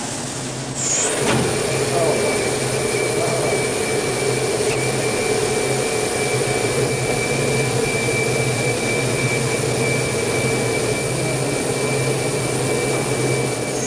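High-power carbon dioxide laser switching on and running: a steady, loud hiss with a thin high whine and a low hum, growing louder about a second in and dying away near the end.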